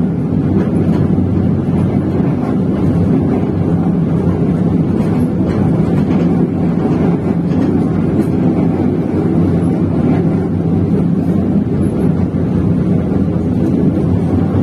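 Train running, a steady low rumble with faint light ticks scattered through it.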